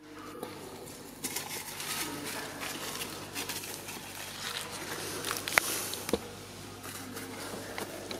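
Dry leaf litter rustling and crackling as macaques move about on it, with scattered light clicks and one sharp click about five and a half seconds in.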